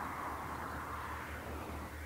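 Distant vehicle noise: a low steady hum under a hiss that fades away over the two seconds.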